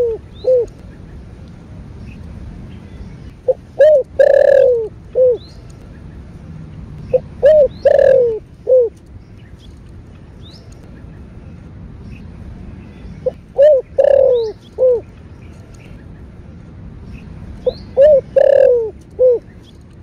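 Spotted dove cooing in repeated phrases: short coos, one longer falling coo that is the loudest part, and a short closing coo, each phrase about a second and a half long and coming about every four to five seconds. Faint chirps of other small birds in between.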